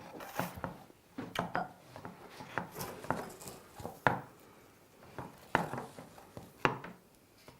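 Parts of a toy garage set being handled and fitted together: scattered light clicks and knocks, the sharpest about four, five and a half and six and a half seconds in.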